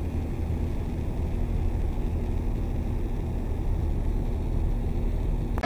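Steady low rumble of a car travelling at highway speed, heard from inside the cabin: tyre, road and engine noise without any sudden events.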